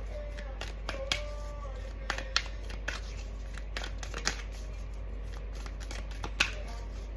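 Oracle cards being shuffled by hand: irregular soft snaps and flicks of the cards, spaced unevenly through the shuffle, while the reader tries to draw a single card.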